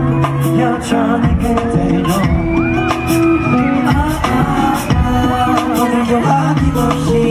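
A male singer sings live into a microphone over a pop ballad backing track with sustained chords and a steady beat, heard from among the audience.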